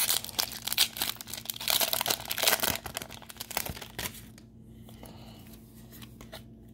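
Foil wrapper of a Pokémon Fusion Strike booster pack being torn open and crinkled for about four seconds. After that it drops to a few faint clicks as the cards are handled.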